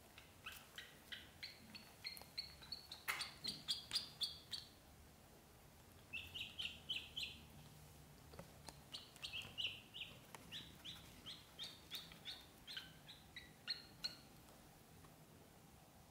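Ducklings peeping: runs of short, high-pitched chirps, several a second, in two bouts with a pause of about a second and a half between them, stopping a couple of seconds before the end.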